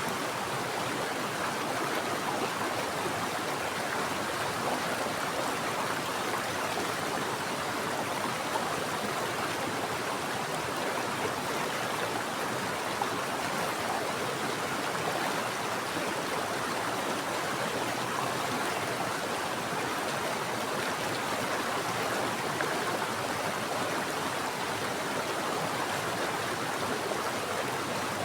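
Mountain stream rushing and splashing over rocks in a steady, even wash of water noise.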